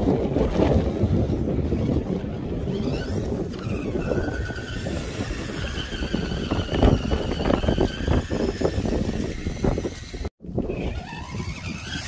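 FTX Kanyon RC crawler wading through deep muddy water, its electric motor whining faintly over the splashing, with heavy wind noise on the microphone. The sound cuts out for an instant about ten seconds in.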